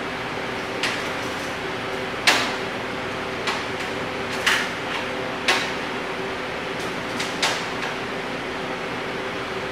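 A tape measure being worked against a car's steel hood, giving about seven short sharp clicks and taps, the loudest a little over two seconds in. A steady machine hum runs under them.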